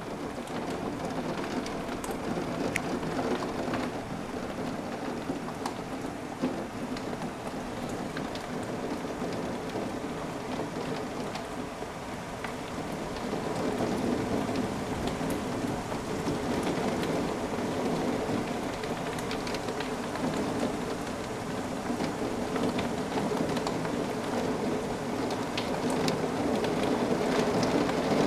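Heavy thunderstorm rain falling steadily, with many drops ticking on the window glass; it grows louder about halfway through.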